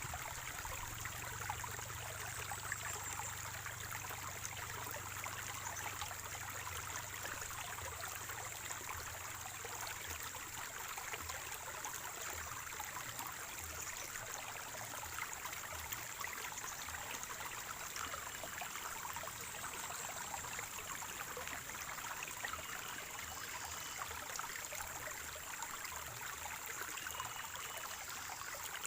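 Spring water running in a small stream, trickling and gurgling steadily.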